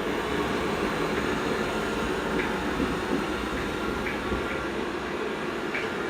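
Dreame L20 Ultra robot vacuum-mop running as it drives across the floor, a steady rumble with a few faint light ticks.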